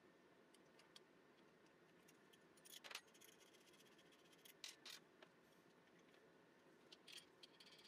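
Faint metallic clicks and light rattles of a steel screw and nut being handled and threaded together, a few short ticks over near silence.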